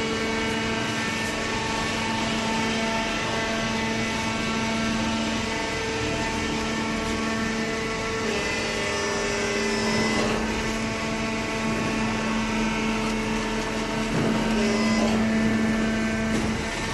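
Paper baler machine running: a steady hum from its motor and pump, shifting slightly in pitch a few times as the load changes.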